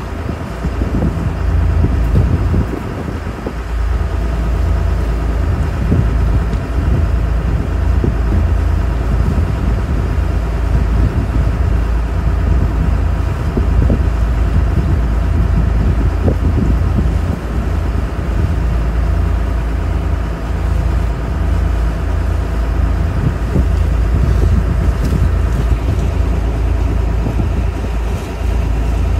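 Fishing boat's engine running steadily underway: a heavy low rumble with a faint steady hum above it, mixed with wind on the microphone.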